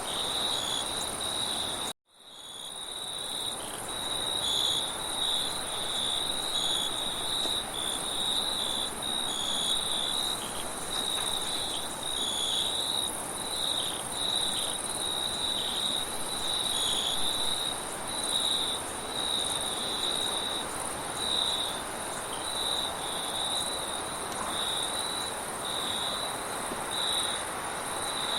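Crickets chirping steadily in a chorus of repeated high chirps over a steady wind-like rush. About two seconds in, the whole sound cuts out abruptly and fades back in.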